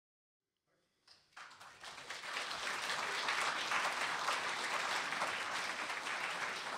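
Audience applauding, many hands clapping, starting about a second in and building to a steady level, greeting the lecturer as he takes the stage.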